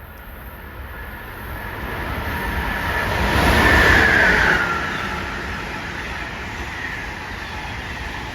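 Train approaching and passing close by, loudest about four seconds in, with a whining tone that drops in pitch as it goes past, then a steady rumble as the rest of the train rolls on.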